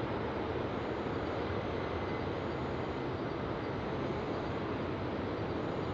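Steady outdoor background roar, even and unbroken, with no distinct events.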